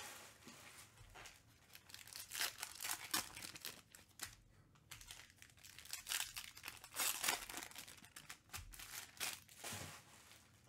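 Foil trading-card pack wrappers being torn open and crinkled by hand, in irregular bursts with pauses between.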